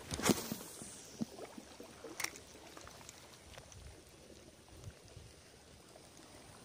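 A spinning-rod cast: a sharp swish about a quarter second in, then a second sharp tick about two seconds in, followed by faint clicks of the spinning reel as its handle is taken and turned.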